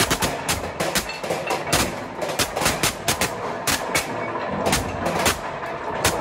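Sorting machine's ejector knocking contaminants out of a stream of construction rubble: a rapid, irregular run of sharp bangs and clacks, about four a second, as pieces are blasted off the belt and strike the chamber's metal panels, over a steady hum of conveyor machinery.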